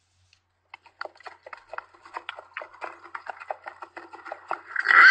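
A horse's hooves clip-clopping in a steady rhythm of about four beats a second, then a horse whinnying loudly near the end.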